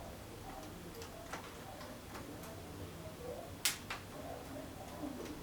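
Light, scattered clicks and taps of hand tools and fingers on a laptop's plastic case as it is opened up for a RAM and SSD upgrade, with one sharper click about three and a half seconds in.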